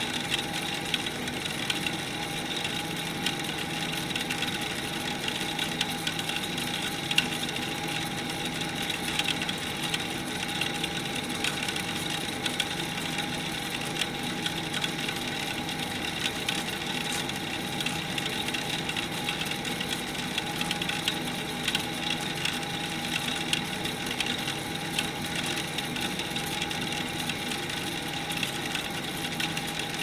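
Industrial boiler return running steadily: a constant mechanical hum with a held whine-like tone and a fine, continuous crackle of small ticks.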